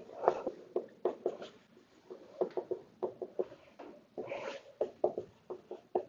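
Dry-erase marker writing on a whiteboard: an irregular run of short strokes, several a second, with a longer stroke about four and a half seconds in.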